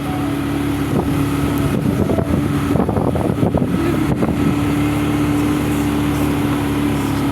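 A motor vehicle's engine running with a steady drone, with irregular rattling in the middle.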